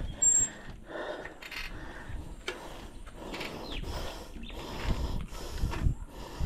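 A cyclist breathing hard in uneven, noisy breaths while pedalling up a steep hill, with low wind rumble on the microphone.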